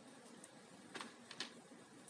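A few faint, short clicks about halfway through over quiet room tone: small parts being handled while a laptop is taken apart.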